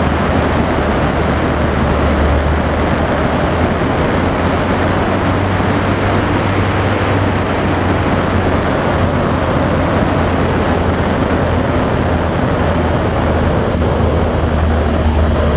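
Wind rushing over an onboard camera on a twin-motor electric TwinStar RC plane in flight, with a steady low buffeting. A faint high whine from its electric motors and propellers drifts in pitch and falls near the end.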